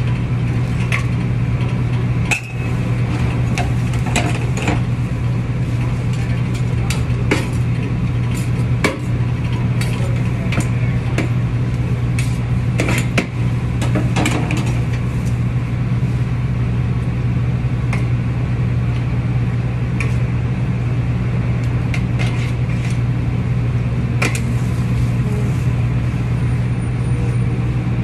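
Metal tongs clicking and scraping on a steel tray, many short clicks, over a loud, steady low machine hum.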